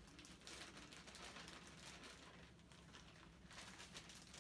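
Faint rustling of a plastic bag and soft pattering as shredded carrots are tipped into the pot.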